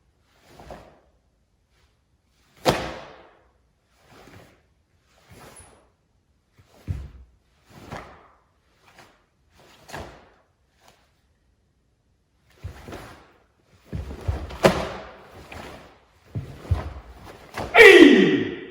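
Wooden bō staffs being swung and struck in a kobudō drill: a string of separate knocks, thuds and swishes, coming closer together and louder in the last few seconds. Near the end comes the loudest sound, a short shout falling in pitch, the kiai that closes the technique.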